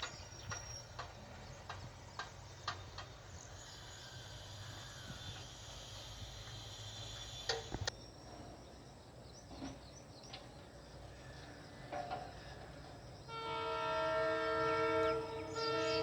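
Low steady rumble with scattered clicks. About 13 s in, the horn of a WDP4D diesel locomotive blows a long, loud chord of several tones.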